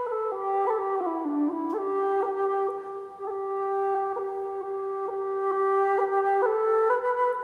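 Slow instrumental background music: a melody of long held notes that dips lower about a second in and then steps back up.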